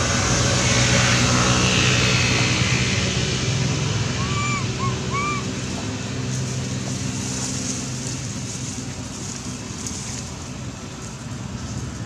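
Steady outdoor background rush with a low hum underneath, and three short high chirps about four to five seconds in.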